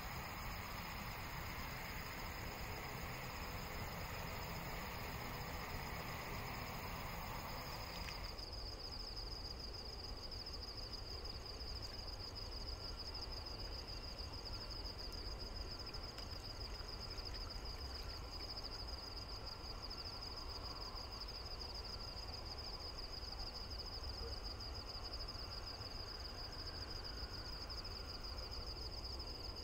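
Steady high-pitched insect chorus, one unbroken trill, over a low background rumble. About eight seconds in, a hiss behind it drops away abruptly.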